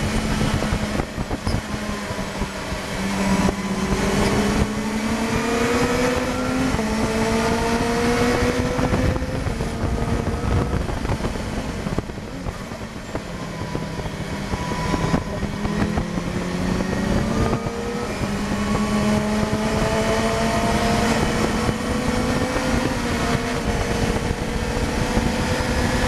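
Lotus 2-Eleven's four-cylinder engine at racing speed, heard from inside the open cockpit over wind noise. It revs up through the gears, falling back at each upshift. It eases off about halfway for a corner, then pulls hard again.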